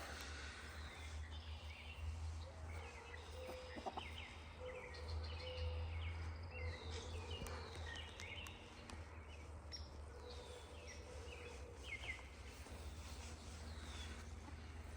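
Faint, scattered short bird chirps and peeps over a steady low hum.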